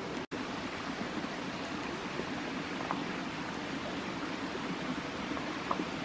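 Shallow stream running over stones: a steady rush of water, with a faint tick or two.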